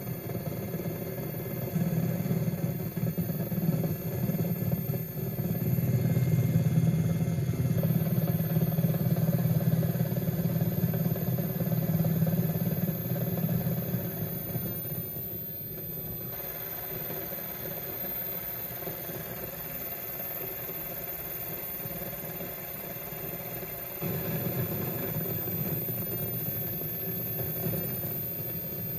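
Steady engine drone with a low hum. It swells for several seconds, eases about halfway through, and picks up again near the end.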